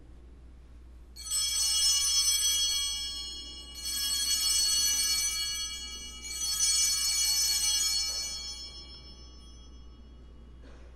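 Altar bells rung three times, each ring high and shimmering and fading over about two and a half seconds. They mark the elevation of the chalice at the consecration.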